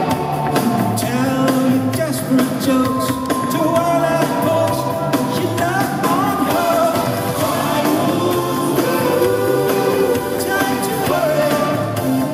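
Live band playing a synth-pop song: keyboards, electric guitar and drums over a pulsing bass line.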